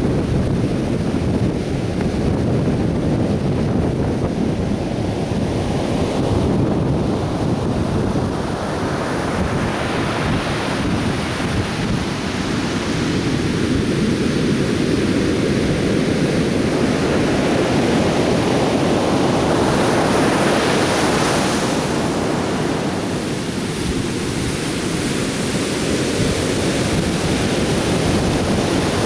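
Atlantic surf breaking and washing up the beach in a continuous rush, swelling as waves break about ten seconds in and again about twenty seconds in. Wind rumbles on the microphone.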